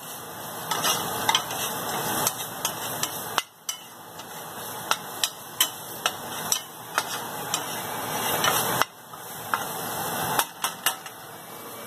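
A spatula stirring chopped onions in a frying pan, scraping and knocking against the pan in irregular clicks over the sizzle of the frying onions.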